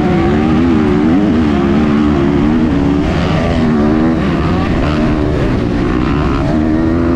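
2023 KTM SX-F 250's single-cylinder four-stroke engine running under the rider, its revs rising and falling continuously as the dirt bike is ridden round a motocross track, heard from onboard.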